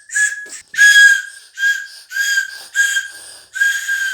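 A small child blowing a whistle in about six short, shrill blasts, each a single steady high note with a breathy edge.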